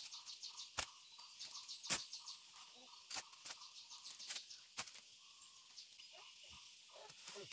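Insects and birds chirping in the countryside, with a fast run of short high chirps in the first couple of seconds. About half a dozen sharp knocks or clicks fall irregularly through it.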